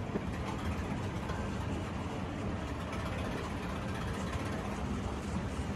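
Escalator running under a rider: a steady low mechanical hum and rumble.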